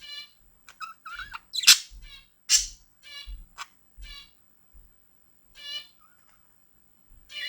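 Budgerigars chirping: a string of short, bright chattering calls, with two loud harsh screeches about two seconds in, then a brief lull near the end.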